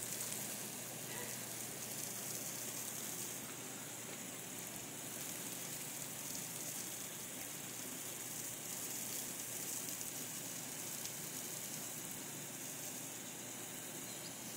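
Lawn sprinkler spraying water from a garden hose, a steady hiss.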